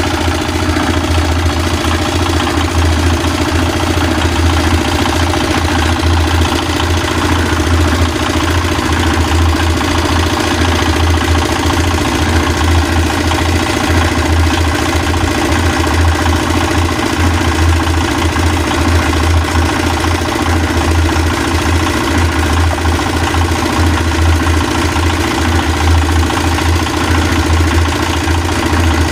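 An engine idling steadily at one constant low pitch.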